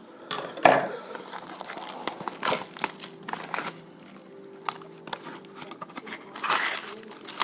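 Trading-card packaging being torn open and handled: irregular crinkling and tearing rustles, with louder bursts about a second in, around two and a half and three and a half seconds, and near the end.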